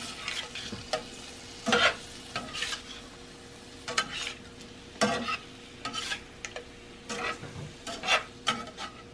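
Slotted metal spatula scraping and stirring shrimp around a frying pan in irregular strokes, about one or two a second, over a steady sizzle: the shrimp are cooking in garlic and oyster sauce on medium-low heat until done.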